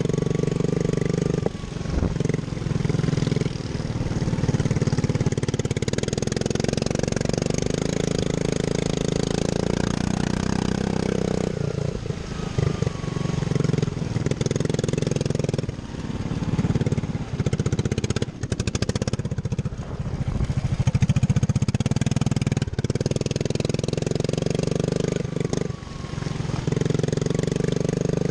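Small Group 3 sprint racing lawn mower's engine running hard around a track, its note falling and rising several times as the throttle is eased and opened again.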